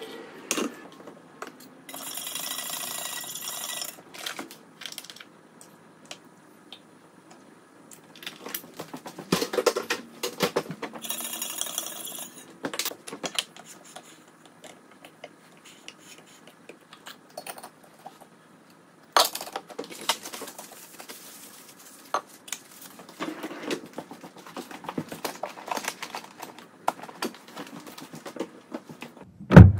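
Hard objects being handled: scattered clinks, clatters and knocks, with two short bursts of hiss about two and eleven seconds in, and one loud knock at the very end.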